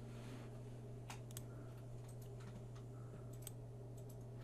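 Faint, scattered computer mouse clicks over a steady low hum, some in quick pairs.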